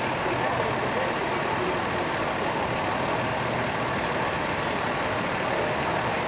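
A parked fire engine's diesel engine idling steadily, with a constant low hum.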